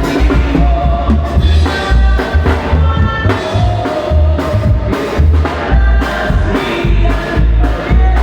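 Live banda music: a bass line pulses heavily on a steady beat under a sustained wind-instrument melody, with drum hits.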